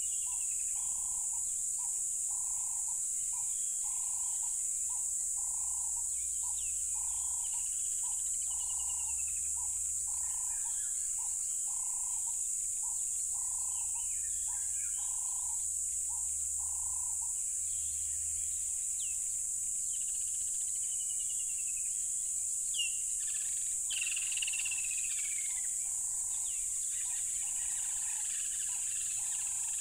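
Crickets trilling in a steady, high-pitched drone. A lower pulsing call repeats about three times every two seconds and drops out for a few seconds past the middle, and birds give short falling whistles now and then.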